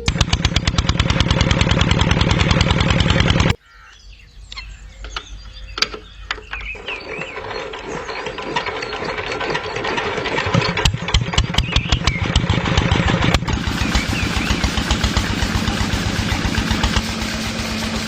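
Tractor engine running with a rapid, even beat. It cuts off abruptly about three and a half seconds in, then comes back and grows louder.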